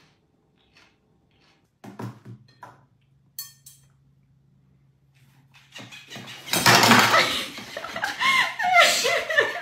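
Fork and plate clinking at a table, then about six and a half seconds in a sudden loud outburst: a startled cry followed by laughter.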